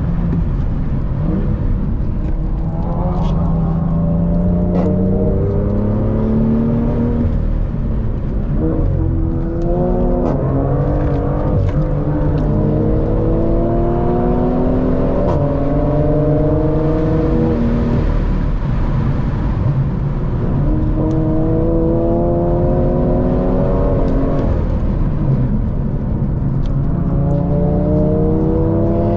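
BMW M2 engine with an M Performance exhaust, heard on board while accelerating hard. The engine note climbs and drops back at each gear change, about five times.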